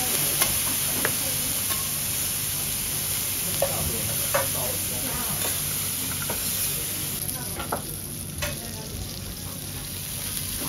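Bean sprouts sizzling on a hot steel teppanyaki griddle as two metal spatulas stir them, with scattered clinks and scrapes of the spatulas on the plate.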